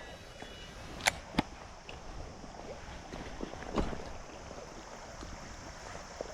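Steady rush of flowing river water, with two sharp clicks about a second in and a duller knock near the middle.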